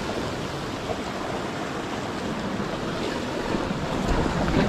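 Sea surf breaking and washing around shoreline rocks, a steady rush of water. Near the end, wind rumbles on the microphone.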